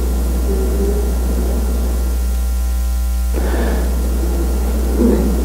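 Steady low electrical mains hum with a faint hiss, carried through the sound system.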